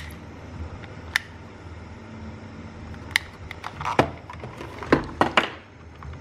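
Sharp clicks and knocks from desoldering work on a circuit board: a spring-loaded desoldering pump snapping as it sucks solder off potentiometer pins. The clicks are scattered, with a cluster of louder ones near the end.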